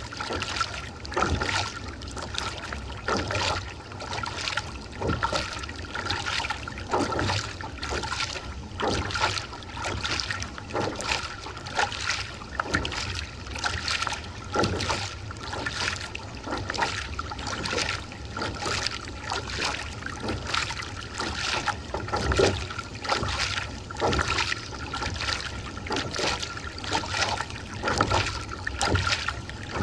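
Kayak being paddled steadily with a Jantex Gamma Rio fibreglass paddle: the blade splashes into the water about once a second, alternating sides, over the trickle and wash of water along the hull. A faint steady high tone runs underneath.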